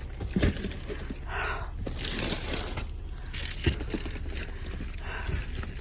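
Plastic bags rustling as groceries are rummaged through, with a few light knocks of items being handled.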